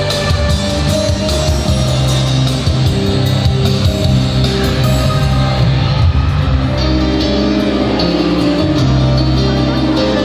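Music with a steady bass line and held notes, playing without a break.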